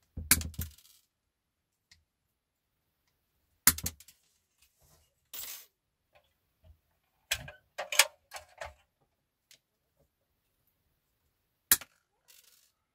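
Side cutters snipping thin steel wire tent bows short: a few sharp, separate snaps several seconds apart, with lighter clicks and a brief rustle of the wire being handled between them.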